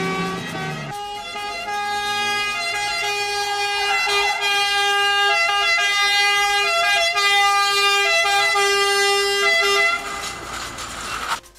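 Ambulance siren sounding, its pitch stepping up and down, with a rising rush of noise shortly before everything cuts off suddenly near the end.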